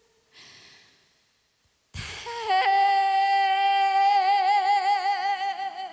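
A woman singing a trot song with no audible accompaniment. After a short breath and about a second of silence, she comes in strongly and holds one long high note that slides down onto pitch, with a vibrato that grows wider as it goes on.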